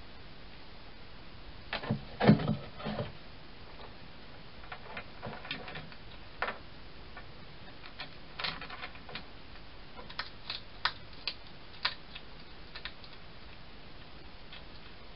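Hedgehog at a feeding-station box making irregular clicks and crunches, with a few heavier knocks about two seconds in.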